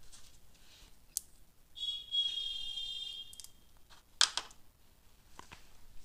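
A steady high-pitched buzzing tone comes in about two seconds in and lasts about a second and a half. A little later there is one sharp click, then a few lighter clicks, as a hand wire stripper is handled and set down on the bench.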